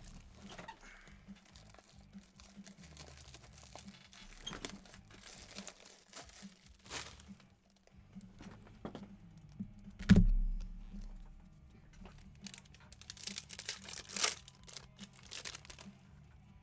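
Foil trading-card pack wrappers crinkling and tearing open, with cards and plastic sleeves being handled in short bursts. One loud thump about ten seconds in, the loudest sound in this stretch.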